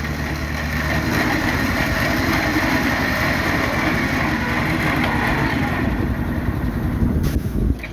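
An engine running steadily with a fast, even low pulsing; a steady low hum drops away about a second in.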